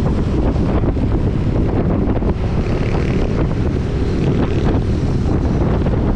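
Wind buffeting a GoPro Hero 8's microphone on the move: a loud, steady low rumble broken by frequent short crackling gusts.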